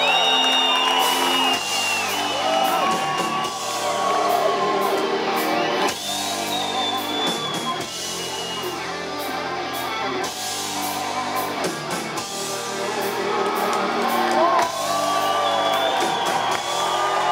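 Melodic death metal band playing live in a large hall: distorted guitars carrying a sustained melody over low held chords, with drums and cymbals, and the crowd whooping.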